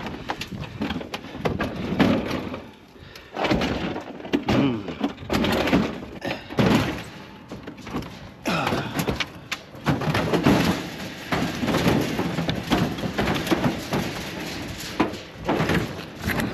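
Sheet-metal cabinet of a discarded washing machine being tipped and handled: repeated irregular clanks, thuds and scrapes of its metal casing.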